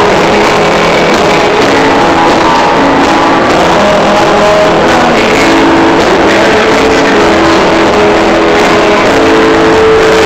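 Loud live church worship music, with long held notes.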